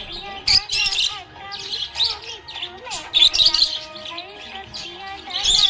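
Budgerigar chirping and warbling in a rapid, irregular string of high chirps, with wavering lower tones running beneath.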